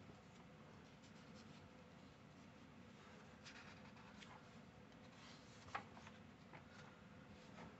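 Faint rustle of comic book paper pages turned by hand, a few soft paper swishes and flicks, the sharpest one just before six seconds in.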